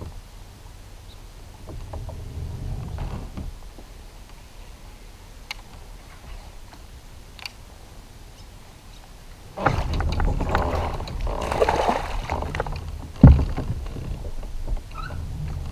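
Handling noise on a plastic fishing kayak: faint ticks at first, then louder bumps and rustling from about ten seconds in, with one sharp knock on the hull a few seconds before the end.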